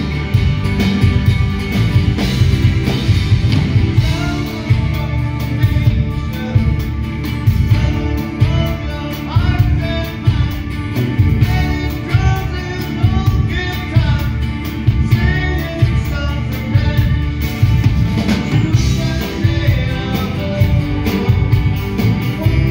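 Live rock band playing a song: electric and acoustic guitars, bass, drums and keyboard with a lead vocal, at full volume with a steady beat.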